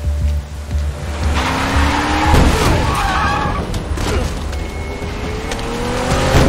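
A car revving hard on a wet street: engine pitch rising, tyres squealing in a skid about a third of the way in, then the engine climbing again toward the end, with the rush of heavy rain. A low pulsing film score runs under it.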